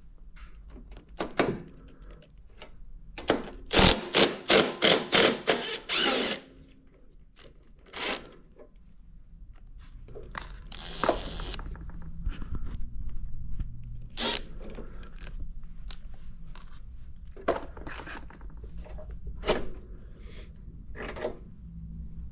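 Hand work with tools and parts: a quick run of about seven sharp knocks, roughly three a second, then a scrape and scattered single knocks and clicks.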